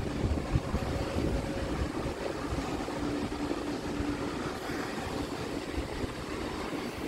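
Wind buffeting the microphone over the steady drone of a distant aircraft's engines, with a low steady hum coming through more clearly about three seconds in.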